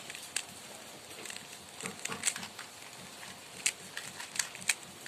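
Plastic clicks and clacks of a 3x3 Rubik's cube being turned face by face, in irregular bursts of a few sharp clicks, as the first-layer corners are put in place.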